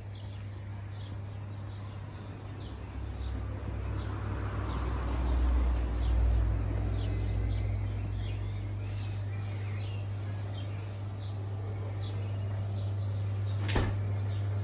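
Small birds chirping over and over, over a steady low hum. A low rumble swells about four to six seconds in, and there is one sharp click near the end.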